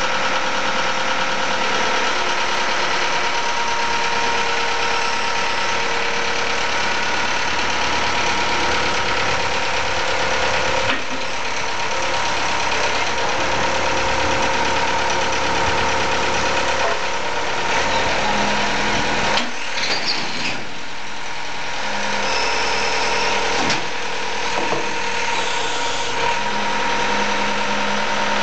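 Backhoe loader's engine running steadily, its sound changing a few times as the load shifts, around the middle and again near the end.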